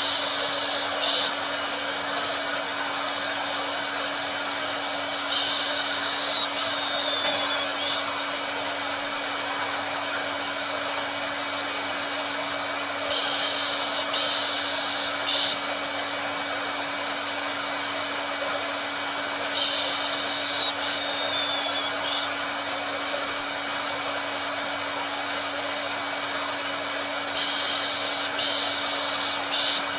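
Hair dryer running steadily: an even rushing noise over a constant motor hum. A brighter, higher hiss swells up in short clusters of two or three about every seven seconds.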